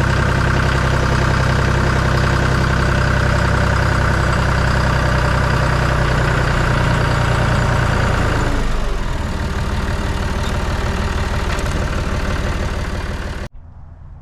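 Engine running steadily at a fairly high speed, then about two-thirds of the way through it slows down, dropping in pitch and getting quieter, before the sound cuts off suddenly near the end.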